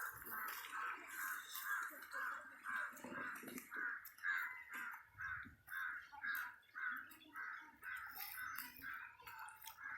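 An animal call repeated in an even, steady rhythm, about three short calls a second, all at the same mid-high pitch.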